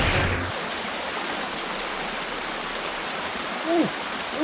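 Shallow rocky stream rapids rushing over stones: a steady hiss of running water. Near the end, two short rising-and-falling vocal sounds from a person.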